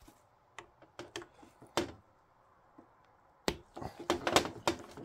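Light metal clicks and taps of a small Torx screwdriver and parts as the screws come out and the strainer is worked off a Volkswagen Haldex all-wheel-drive pump. A few single clicks come first, then a quick run of clicking about three and a half seconds in.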